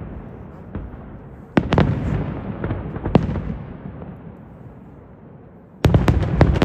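Aerial firework shells bursting: a loud bang about a second and a half in and another around three seconds, each dying away over a second or two. Near the end comes a rapid cluster of bangs in quick succession.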